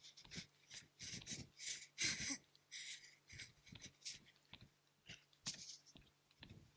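Faint breathing and soft landings of trainers on the floor from two people doing jumping jacks, coming in short, irregular bursts.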